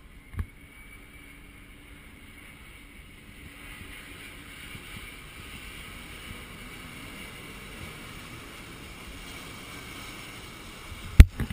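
Large jet aircraft passing low overhead, its engine noise a steady rush that swells from about three seconds in. A small thump just after the start and a loud sharp thump near the end.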